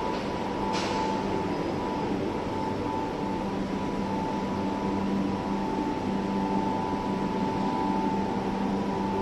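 Concrete pump truck's machinery running steadily, a constant hum with a high steady whine over it and one sharp click about a second in.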